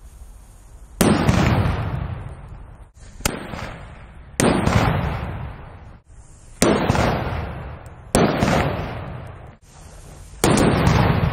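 Firecrackers exploding one after another on the pavement: six loud bangs about every one and a half to two seconds, the second one weaker. Each bang is followed by a long echo that dies away.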